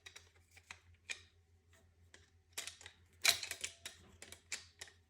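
Light irregular clicks and taps of a fuel injector being worked and tapped into a fuel rail, with a denser run of clicks about three seconds in.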